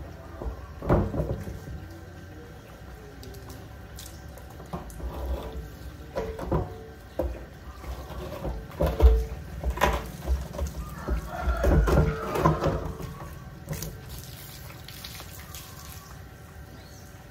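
Water running from a garden hose and splashing on empty plastic silage drums as they are rinsed out, with hollow knocks and thuds of the drums being tipped and set down, loudest about a second in and again around nine and twelve seconds in.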